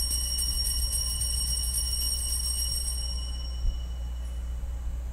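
Altar bell rung at the elevation of the chalice: a high, clear ring that fades away over about four seconds, over a steady low hum.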